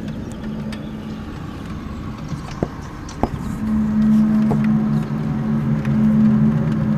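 The unexplained 'strange sound' heard outdoors: a low drone of several steady pitched tones that fades for a couple of seconds, then returns louder and holds. Two short clicks come near the middle.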